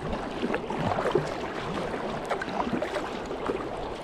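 Steady rush of river water with small irregular splashes around a small packraft.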